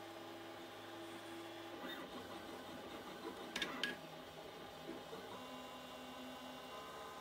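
Artillery Genius Pro FDM 3D printer printing: its stepper motors whine in several steady tones that shift pitch as the print head changes its moves, about two seconds in and again about five seconds in. A quick cluster of sharp clicks comes near the middle.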